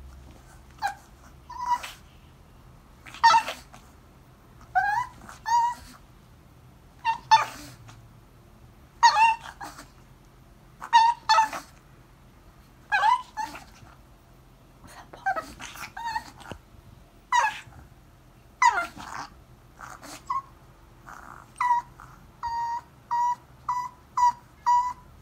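Chihuahua whining and yipping in excitement at the word 'walk': a string of short high-pitched cries every second or two, some rising or falling in pitch, then a quick run of short even yips near the end.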